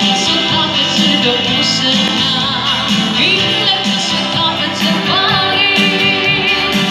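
Moro pop song playing: a voice singing a bending melody over guitar accompaniment.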